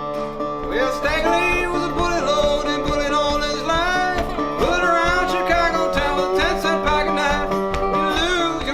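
Country-style music with plucked strings and a melody line that glides between notes over a steady beat.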